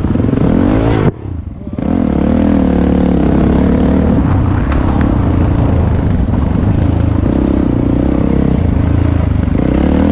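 Dirt bike engine running under throttle along a trail. The engine note climbs, drops away sharply about a second in for under a second, then picks up again and holds fairly steady.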